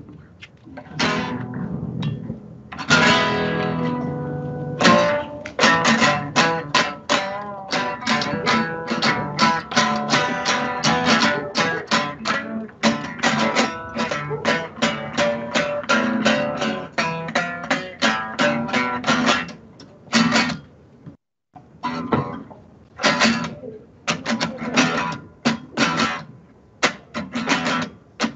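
Acoustic guitar played alone: a few ringing chords, then fast, steady strokes several a second, with a brief break about twenty-one seconds in.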